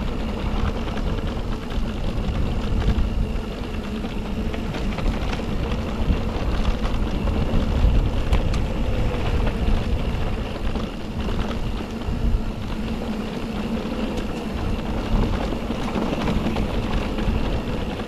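Wind rushing over the action camera's microphone and mountain e-bike tyres rolling over a dirt trail while riding, a steady rumble with a faint steady hum underneath.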